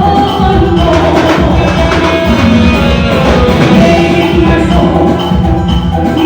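Loud party band music over a sound system, with a steady beat and singing.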